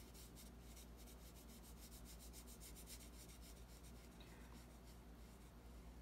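Faint scratching of a watercolour brush stroking paint onto a paper card, a run of short irregular strokes, over a low steady hum.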